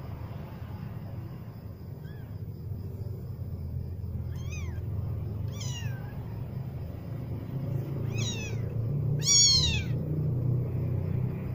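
Young kittens mewing: about five short, high-pitched cries, each falling in pitch, the loudest about nine seconds in, over a steady low rumble.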